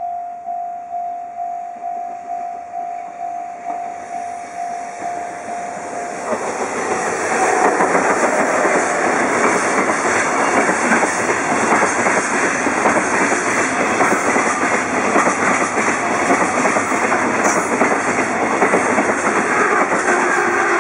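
A Japanese level-crossing warning bell rings in steady pulses, then from about six seconds in a container freight train hauled by an EF66 electric locomotive passes close by. The wheels clatter steadily over the rails and drown out the bell.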